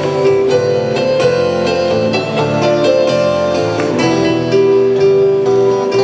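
Instrumental music led by a keyboard playing sustained, piano-like chords over a steady bass line, with no singing.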